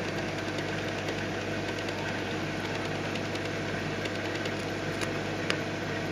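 Steady electric hum of a Red Sea Max 130D reef aquarium's running equipment, pumps and fans, with a low mains-frequency drone underneath. A sharp faint click sounds about five and a half seconds in.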